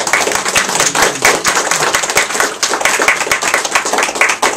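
A small group of people applauding, with dense, fast hand claps throughout.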